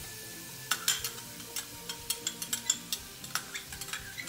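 A cooking spoon clicking and scraping against an aluminium pot, irregularly, several times a second from about a second in, as ketchup is stirred into seasoning frying in oil, with a faint sizzle underneath.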